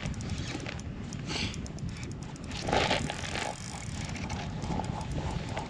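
Fishing reel being cranked while a hooked lake trout is fought up through an ice hole, with fine clicking and a couple of brief rustles. Wind rumbles on the microphone throughout.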